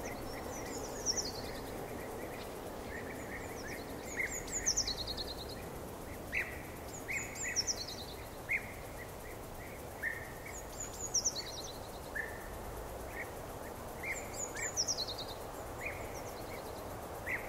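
Outdoor ambience with birds singing: one bird repeats a short, high song that falls in pitch about every three to four seconds, while other short chirps come in between, over a steady background hiss.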